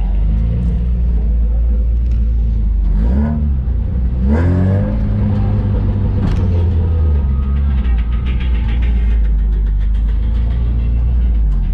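Engine of a 4x4 off-road jeep heard from inside the cabin, running with a heavy low rumble and revving up and dropping back several times, most strongly about four and a half seconds in.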